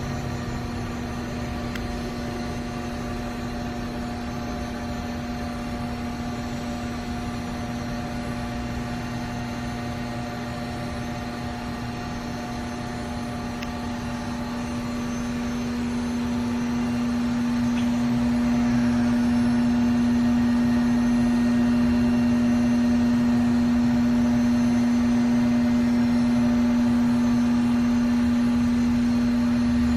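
Mikron HSM-400U high-speed 5-axis machining center running with a steady hum made of several held tones. About halfway through it grows louder and then holds at the higher level.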